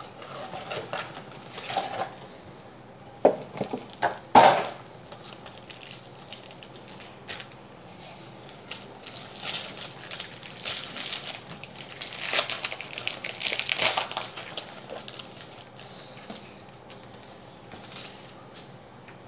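Baseball card packs and their box being torn open: a few sharp snaps of cardboard and wrapper about three to four seconds in, then longer stretches of crinkling wrapper.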